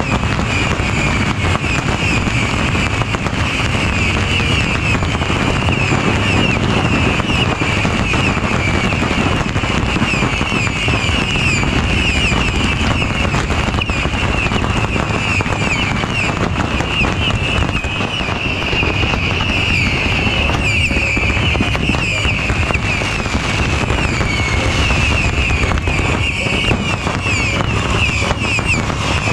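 Beehive fireworks barrage: swarms of small rockets firing at once, with a dense, unbroken crackle of pops and bangs under a steady shrill whizzing.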